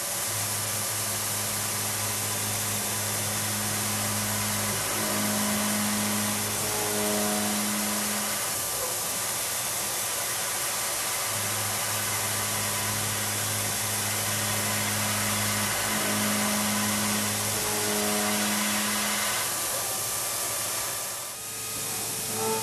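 Milling machine cutting metal with a Walter-Prototyp Tough Guys milling cutter: a steady hiss over a low hum, with the hum shifting pitch in two stretches, a few seconds in and again past the middle.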